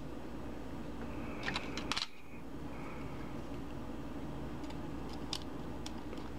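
Small metal lock pins and springs clicking as they are tipped out of the lock's pin chambers: a quick cluster of clicks about a second and a half in, then a few sparse clicks near the end, over a steady low hum.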